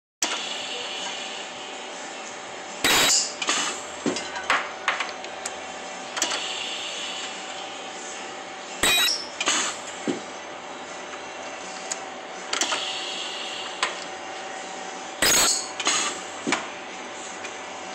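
Ultrasonic welding machine working through repeated weld cycles about every six seconds: each cycle is a loud sudden burst followed by a few clicks, over a steady machine hum.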